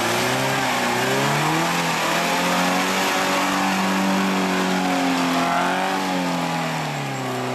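Suzuki Grand Vitara's engine revving under load on a rutted dirt track. The pitch rises about a second in, holds for a few seconds, then drops again near the end.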